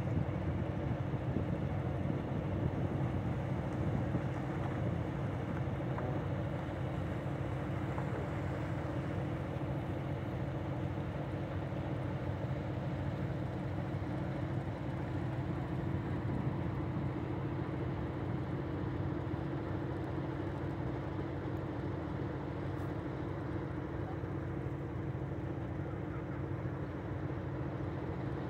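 Diesel locomotive idling at a standstill, a steady low engine hum that does not change.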